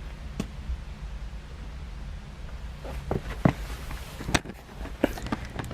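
Fanimation Windpointe ceiling fan running at slow speed with a steady low hum. From about halfway through, a series of sharp clicks and knocks.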